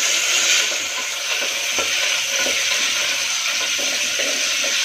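Onions and green peas sizzling in hot oil in an aluminium pressure cooker as they are stirred with a wooden spoon, with a few light scrapes and taps of the spoon on the pan.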